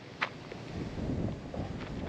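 Wind buffeting the microphone outdoors, an uneven rumbling noise that grows after about half a second, with a short sharp click a quarter second in.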